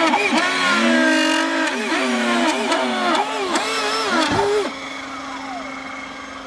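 Electric ducted fans of a radio-controlled hovercraft. The lift fan gives a steady whine while the two rear thrust fans rise and fall in pitch, crossing each other as the craft is steered. About four and a half seconds in, the thrust fans throttle back and spin down, leaving only the lift fan's steady tone.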